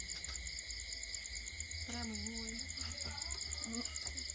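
Night insect chorus of crickets: a steady high-pitched trilling with rapid, even pulses, and a brief faint call about two seconds in.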